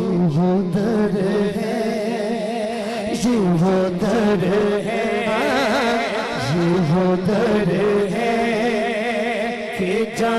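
A man singing a naat into a microphone, holding long notes that waver up and down without clear words.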